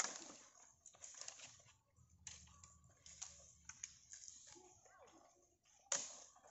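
Dry fallen leaves and twigs crackling in scattered faint snaps as branches are dragged and walked over. A louder crack comes at the start and another near the end.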